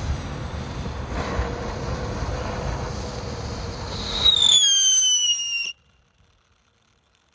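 Big Red Tractor ground-novelty firework fizzing as it burns and moves, then a loud whistle, falling slightly in pitch, for about a second and a half, cutting off suddenly a little past halfway as the firework burns out.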